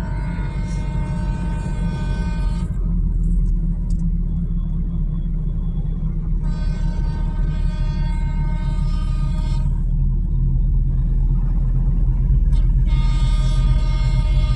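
Vehicle horns sounding in three long steady blasts over a constant low rumble of engines.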